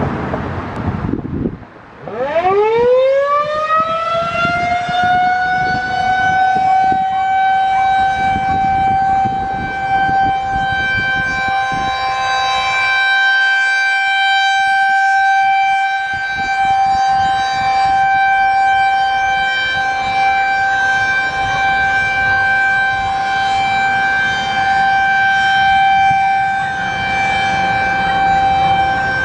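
A short rush of noise, then a Federal Signal 2001-SRN rotating electromechanical siren winds up from a low pitch over a few seconds and holds one steady tone: the steady alert signal. Its loudness swells and dips slowly as the horn rotates.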